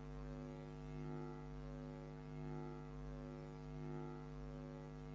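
Steady low electrical hum with a stack of overtones, swelling slightly about every second and a half.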